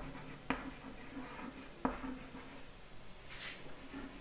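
Chalk writing on a chalkboard: soft scratching strokes with a few sharp taps as the chalk meets the board.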